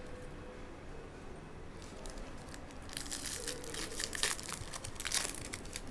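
Foil trading-card pack wrapper being torn open and crinkled, a dense crackling that starts about halfway through and stops shortly before the end.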